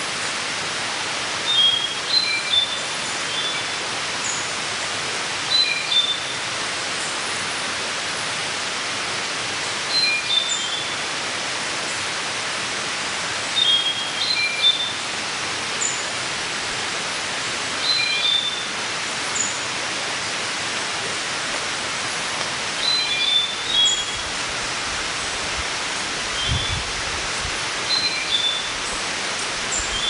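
Steady, even forest hiss with a bird calling over it: a short cluster of high chirping notes about every four seconds.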